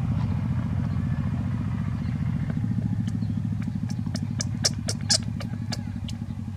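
A steady low hum like a small engine running, with a run of about a dozen sharp clicks in the second half, two of them louder than the rest.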